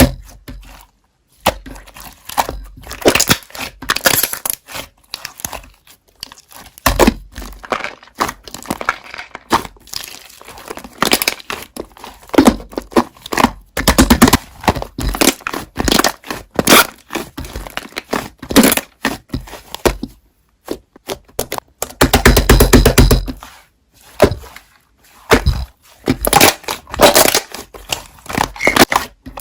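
Slime being squished, stretched and pressed, giving sticky crackling, clicking and popping in irregular bursts with short pauses between them.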